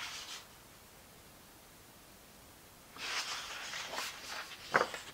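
Near silence, then about three seconds in a woman's long breath out through the nose and a short sniff near the end, as she holds back tears.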